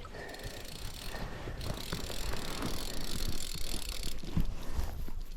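A fly reel's click-and-pawl ratcheting in a rapid run of ticks while a hooked fish is being played.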